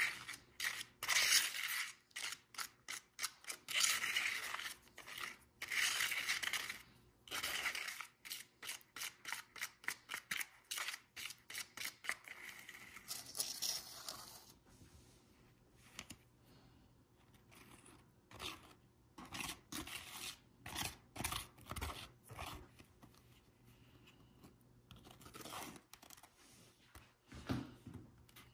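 White plastic spoon stirring and scraping thick grout paste in a clear bowl: quick, repeated rasping strokes, loudest in the first half. Later come softer, duller scrapes and knocks as the paste is scooped out of the tipped bowl.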